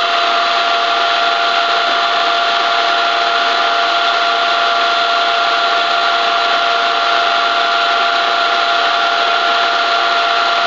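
Ikeda RM-1875 radial arm drill press spindle running at 1500 rpm, its top speed, with the power feed engaged. It gives a steady mechanical hum with a constant whine.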